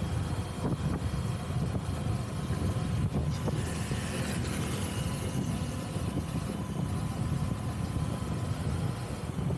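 Steady low engine and road rumble of a vehicle driving through city traffic, with a faint hiss of wind and tyre noise above it.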